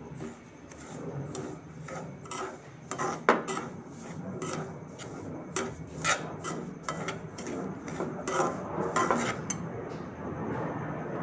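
Slotted metal spatula scraping and stirring semolina in oil around a stainless steel pan, roasting it over low heat. Irregular scrapes with metal knocks, the loudest about three seconds in.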